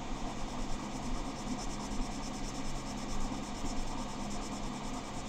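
Erasable colored pencil scribbling on paper in quick, even back-and-forth hatching strokes, laying down heavy pigment.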